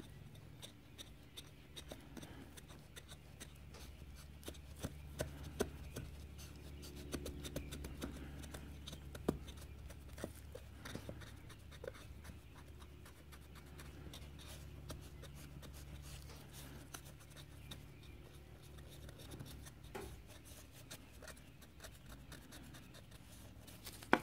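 Faint rubbing and scratching of a rag damp with brake cleaner being worked into the tight corners of a Yamaha TDR250 two-stroke crankcase, with many small scattered clicks and taps.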